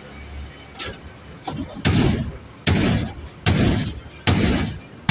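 Rhythmic hammering on a building site: a sharp, heavy blow a little under once a second, starting about two seconds in, with a couple of lighter knocks before.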